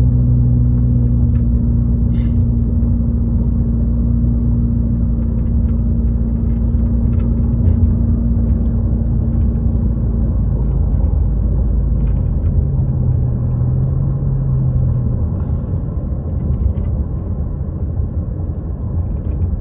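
Car driving, heard from inside the cabin: a steady engine hum over road and tyre rumble, the deepest rumble easing about twelve seconds in.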